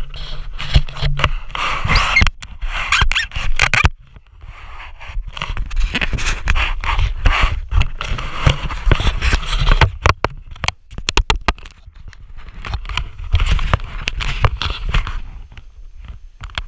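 Sit-ski's skis scraping and carving across packed snow in three long turns, each a rough hiss lasting several seconds. Between the turns come sharp clicks and knocks, over a low wind rumble on the camera.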